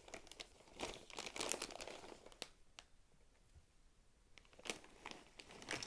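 Plastic pork crackle snack bag being opened and handled, crinkling in bursts, with a quiet lull midway and more crinkling near the end.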